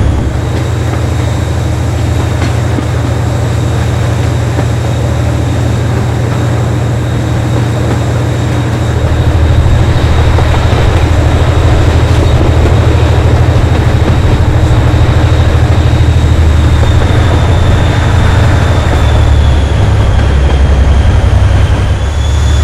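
Class 57 diesel locomotive's GM-EMD V12 two-stroke engine working hard under load, a loud low throb that gets louder about nine seconds in, with a steady high whine over it.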